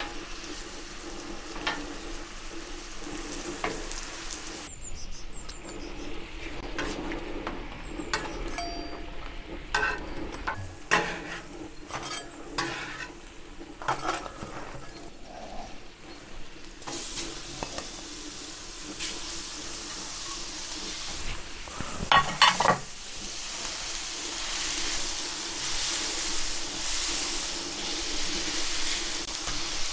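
Food sizzling on a gas plancha's steel griddle plate, with a metal spatula scraping and clicking against the plate as toasted bread slices are lifted off. A loud clatter comes a little past the middle, and near the end a stronger sizzle sets in as burger patties cook on the hot plate.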